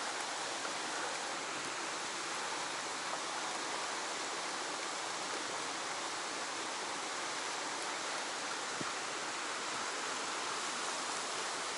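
Steady rush of a fast-flowing stream's current running past a rock ledge.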